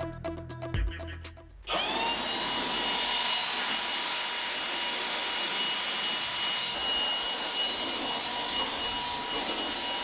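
A handheld leaf blower spins up with a short rising whine, then runs steadily, a loud rush of air under a high whine, as it blows sawdust off a bandsaw mill. Electronic music ends in the first second, before the blower starts.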